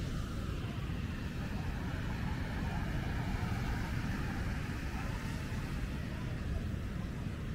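Steady wind buffeting the microphone over the continuous wash of surf breaking on a beach.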